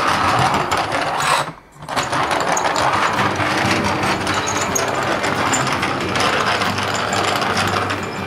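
Toy truck pushed along by hand, giving a rapid mechanical rattle like small gears whirring, which breaks off briefly about a second and a half in.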